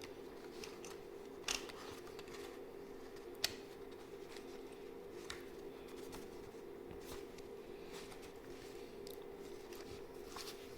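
Faint scattered clicks and taps of small parts being handled, with two sharper clicks about a second and a half and three and a half seconds in, over a steady low hum.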